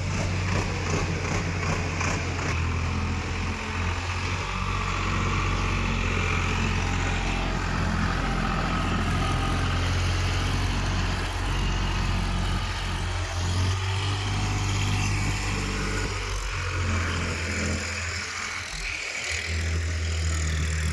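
Diesel engine of heavy earth-moving machinery running, a deep steady hum with mechanical noise over it, its level shifting now and then.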